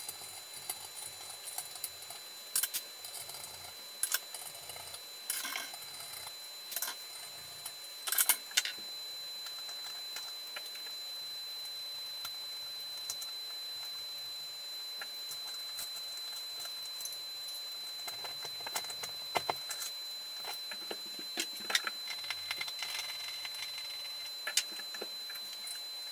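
Scattered sharp clicks and rattles of a screwdriver, screws and metal ceiling-fan parts being handled as the fan is taken down. The clicks come thick in the first nine seconds or so, then thin out, over a faint steady high-pitched whine.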